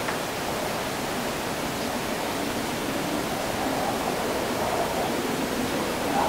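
After-rain city ambience: a steady, even wash of wind and wet noise with no distinct events.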